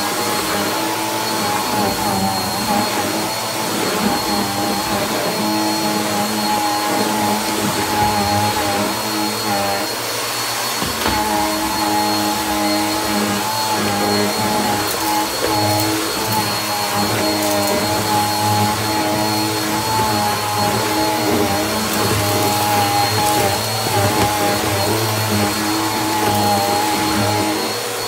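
Upright bagless vacuum cleaner running steadily on a hardwood floor: a constant motor drone with a thin, high whine over it.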